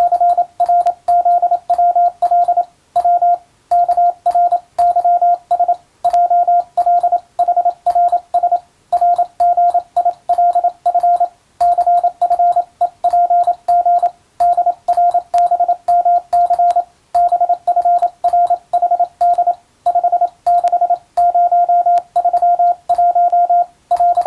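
Hand-keyed Morse code: a single steady beep tone switched on and off in dots and dashes, grouped into letters and words with short gaps, and a faint click at each keying edge. It is the text of an English-language radiotelegram being sent, and it stops right at the end.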